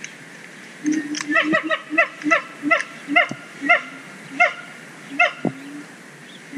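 Siamang gibbons singing: a run of short, loud barking calls that comes quickly at first, several a second, then slows to about one every second, with a few lower, longer notes mixed in.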